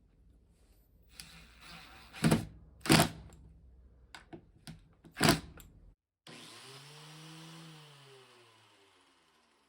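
Three loud knocks and a few lighter taps, as of parts being set on a workbench. Then a disc grinder's motor is switched on briefly, its whine rising a little and then falling away as it winds down.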